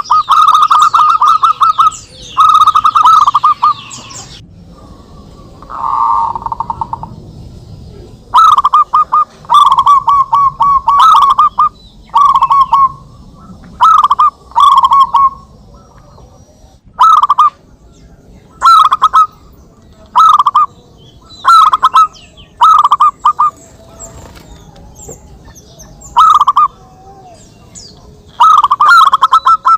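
Zebra doves (perkutut) singing in answer to one another: short bursts of quick, stuttering coos, with a long unbroken run at the start, a lull from about four to eight seconds in, then a phrase every second or two.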